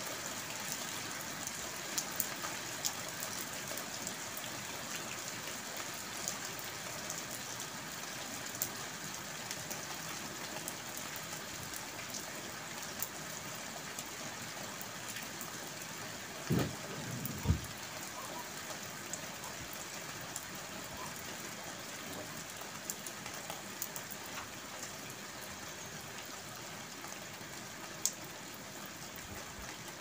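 Steady rain falling, a dense even hiss with scattered sharp drip clicks. There are two brief low thumps about halfway through.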